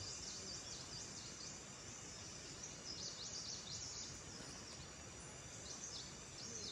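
Many short, high-pitched falling chirps repeating steadily, with faint scraping and crumbling of loose soil as bare hands dig around a ginseng root.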